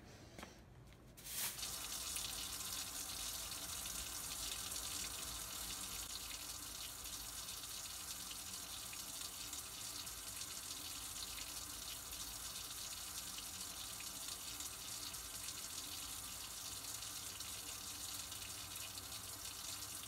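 A faucet running a steady stream of water into a utility sink, starting suddenly about a second in.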